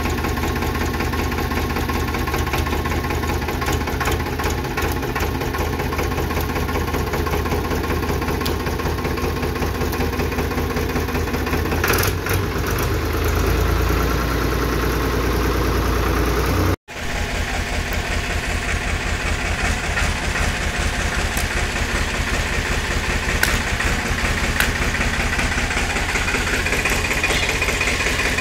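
Powertrac 439 Plus tractor's diesel engine running steadily, its low rumble growing stronger between about thirteen and seventeen seconds in. A brief sharp crack sounds about twelve seconds in, and the sound drops out for an instant near seventeen seconds.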